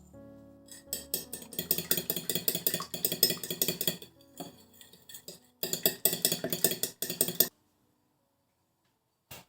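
A utensil clinking rapidly and evenly against a dish, in two bouts, the second shorter. A single short click comes near the end.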